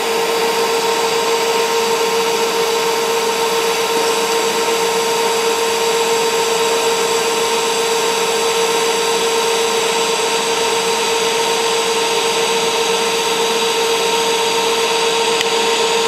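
DC TIG welding arc from a Longevity Innovator 255i running a bead on stainless steel: a steady hiss with a constant mid-pitched tone.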